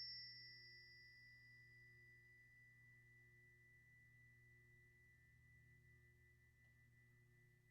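A faint, high, pure metallic tone from a single strike just before, ringing on and slowly fading, with a fainter higher overtone that dies away in the first couple of seconds. A low steady hum sits underneath.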